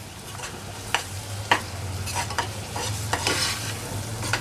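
Onion, turmeric and red chilli paste frying in oil in a pan, sizzling steadily as it is stirred, with a few sharp knocks of the utensil against the pan.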